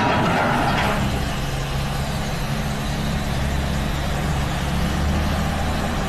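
Diesel engine of a Yonggong scrap-handling excavator running steadily with a low hum. During the first second, a rough clattering noise from the grapple working scrap steel plays over it and then stops suddenly.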